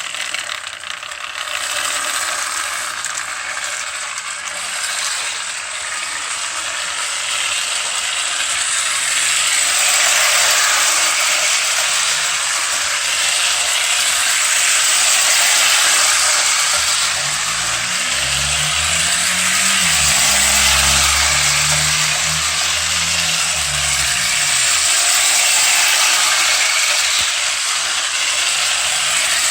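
Lionel toy train locomotive running on its track: a steady mechanical gear-and-motor rattle, with a low hum that swells and falls away about two-thirds of the way through.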